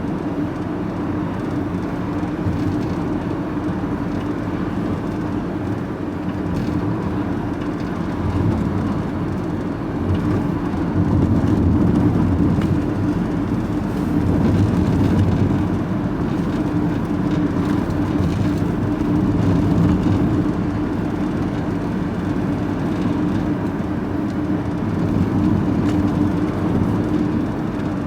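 Steady engine drone and road noise heard from inside a vehicle's cab while driving at road speed, with a low hum and a faint steady tone; it swells slightly at times.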